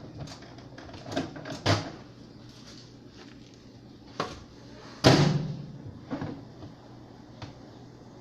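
Kitchen handling knocks and clatter, with a loud thud of a door shutting about five seconds in.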